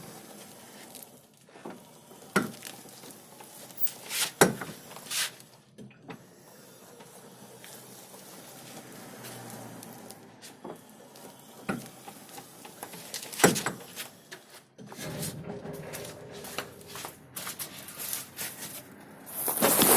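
Irregular single knocks, several seconds apart, from a Baltmotors Striker 500 EFI ATV being rolled slowly, the knock that appears at very low speed. There is rustling and shuffling near the end.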